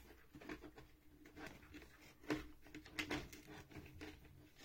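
Faint handling noise: a scattering of light clicks and knocks, a little louder about two and three seconds in, over a low steady hum.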